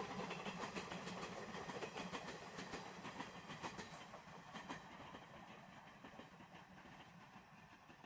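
Moka Railway steam-hauled train's wheels clicking rhythmically over the rail joints, fading steadily as the train moves away.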